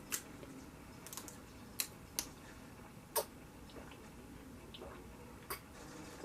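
Scattered sharp clicks and taps, about six at uneven intervals, from someone eating and handling dishes, utensils and a water bottle.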